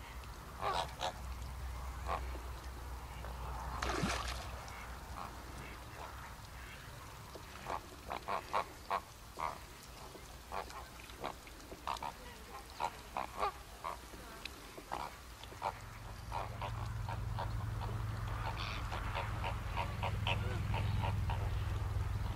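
A flock of greater flamingos calling: short, honking calls in quick clusters, thickest in the second half. A steady low rumble sets in about two-thirds of the way through.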